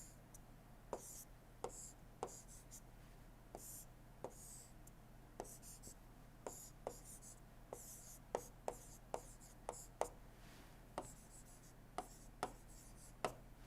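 Quiet pen strokes and light taps of a pen on a writing surface as a circuit diagram is drawn, with short scratchy strokes and clicks every half second or so, a little denser in the second half.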